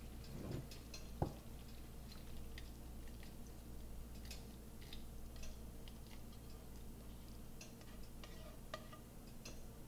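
Black plastic slotted spatula scraping and tapping against a frying pan as noodles are scooped into a glass bowl. It makes faint scattered clicks, with one sharper knock about a second in.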